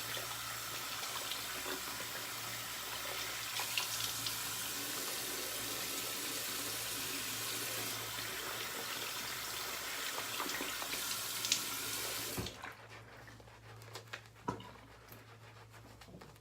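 Water running from a tap into a sink, shut off suddenly about twelve seconds in, followed by a few small clicks and knocks.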